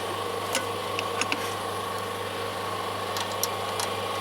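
A few light metallic clicks of hand tools and sockets being handled, over a steady low hum.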